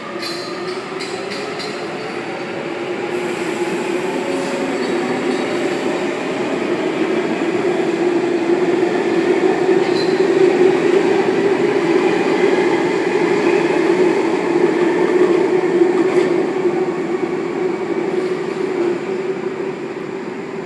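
Sydney Waratah electric train running along the platform, its steady motor drone swelling to its loudest in the middle and then easing off. A few sharp clicks sound in the first couple of seconds.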